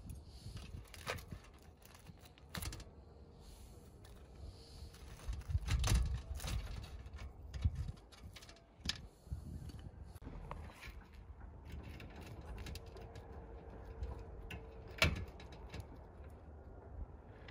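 Metal forks clicking, tapping and scraping against a wire grill rack and steel tray as grilled fish steaks are lifted off, in irregular light clinks with a duller knock about six seconds in.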